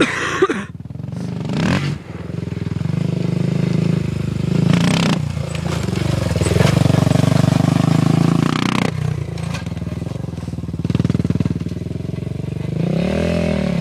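An engine running steadily, revving up and back down near the end, with a few short clattering knocks along the way.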